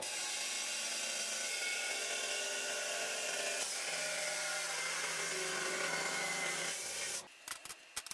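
Abrasive chop saw with a cut-off wheel grinding through steel angle iron, a steady, loud, high grinding whose pitch shifts a little about halfway. It stops abruptly about seven seconds in, followed by a few light clicks.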